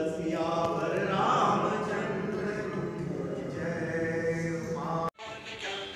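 A group of worshippers chanting a Hindu devotional hymn together, in long sung lines. About five seconds in it cuts off abruptly and music takes over.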